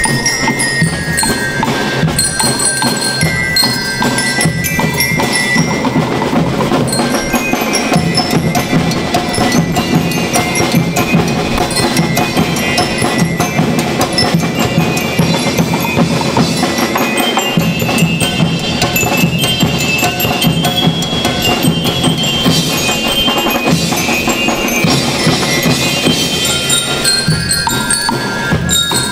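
School rhythm band playing a tune: metal bell lyres ring out the melody over a steady beat of snare drums, bass drum and a drum kit.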